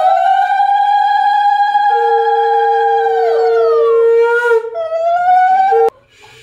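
Two conch shells blown together in long steady notes, one high and one lower. The higher note sags in pitch and breaks off a little past halfway, is blown again, and both stop shortly before the end.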